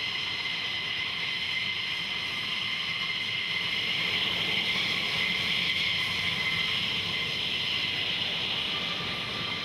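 Jet aircraft engine running with a steady high whine over a rushing noise, swelling slightly midway through.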